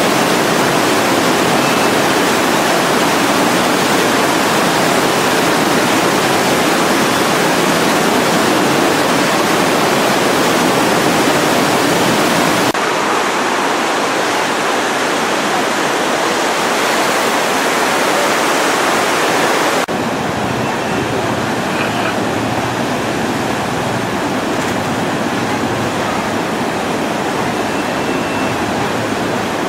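Ganges river in flood, its swollen water rushing in a steady, loud wash of noise. The sound steps down and changes character abruptly twice, about 13 and 20 seconds in.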